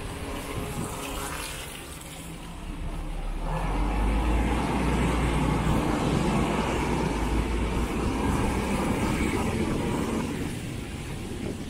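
A heavy engine passing close by. Its low rumble and rushing noise swell about three seconds in, hold steady, and fade near the end.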